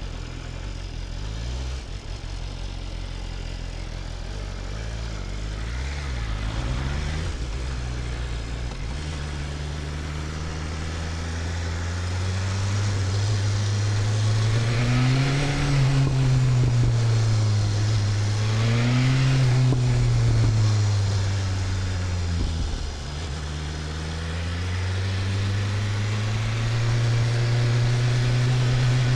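BMW S1000RR inline-four sportbike engine running under way, its pitch climbing, swelling and falling twice in the middle as the throttle is worked, dropping sharply for a moment about two-thirds of the way through, then rising steadily again.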